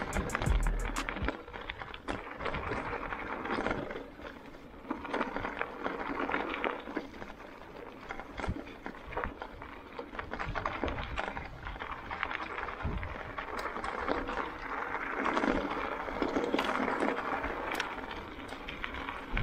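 E-mountain bike rolling over a rough stony and grassy singletrack: uneven tyre noise that swells and fades, with frequent short clattering clicks from the bike.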